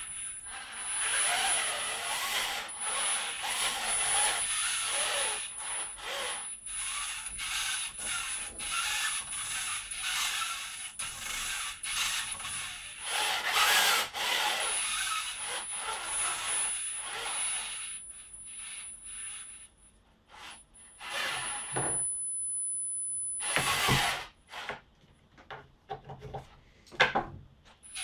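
DC motors of a 3D-printed robot arm whirring and grinding in uneven surges as the arm swings, with a thin steady high whine over them. About two-thirds of the way in the motor noise dies down to a few short bursts.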